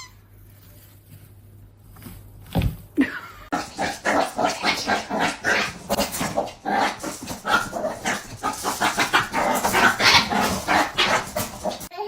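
A dog vocalising in a rapid, continuous string of short barks and yelps, starting about three and a half seconds in.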